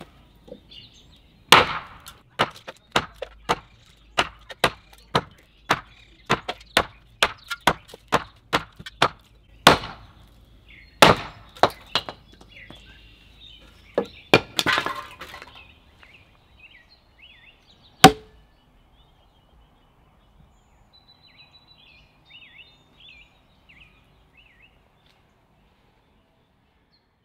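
Hand-forged axe chopping into a wooden board on a wooden sawhorse bench: a run of sharp chopping strikes, about two a second, with a few heavier blows. After a short pause there is one last loud strike.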